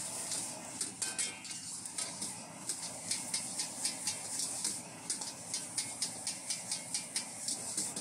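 Metal spatula striking and scraping a wok in quick stir-frying, about three clanks a second, over a steady high hiss of frying.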